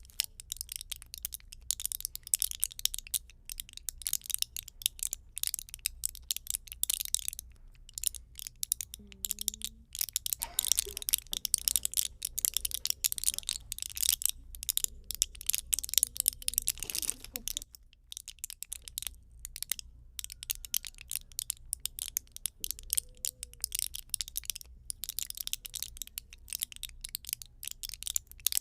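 Wood campfire crackling: a dense, irregular run of small snaps and pops over a steady low rumble.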